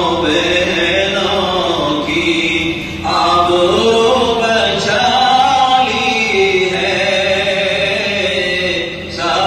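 A man's solo voice singing an Urdu naat, drawing out long melismatic notes that glide up and down, with short breaks for breath about three seconds in and again near the end.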